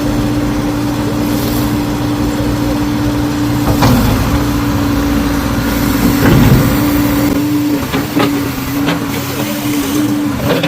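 A machine engine running steadily with a constant hum. Its pitch dips briefly about four seconds in and again around six and a half seconds, and a few sharp clicks come near the end; the low rumble beneath it falls away about seven seconds in.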